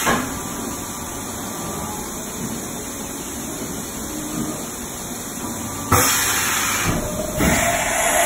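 Haas VF7/50 vertical machining center running: a steady mechanical whir and hiss, louder for about a second from around six seconds in and again from about seven and a half seconds.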